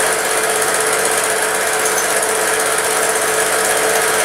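Film projector running: a steady, fast mechanical clatter with a constant tone underneath.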